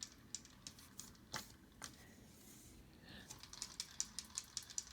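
Hampton Bay Littleton ceiling fan running upside down with a light clicking. A few scattered clicks give way, about three seconds in, to a quick, even ticking of about six a second. The owner had not heard this noise from the fan before.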